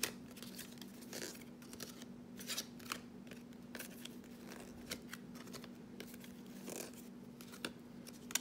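A stack of football trading cards being flipped through by hand, each card slid and snapped off the deck in irregular short crisp flicks. A low steady hum runs underneath.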